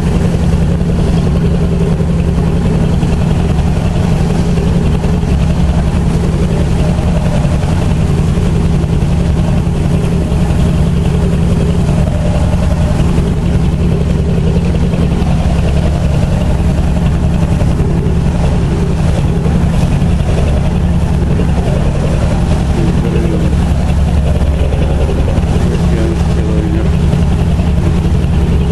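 A boat's engine running steadily, a loud low drone heard from on board while under way.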